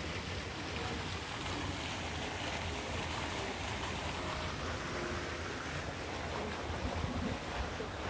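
Wind blowing on the microphone outdoors: a steady, deep rushing noise with no distinct events.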